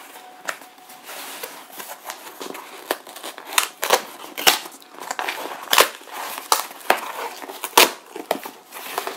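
A cardboard mailer box being torn open by hand along its perforated tear strip, the flaps pulled back: irregular crackling and rustling of cardboard with a scatter of sharp snaps.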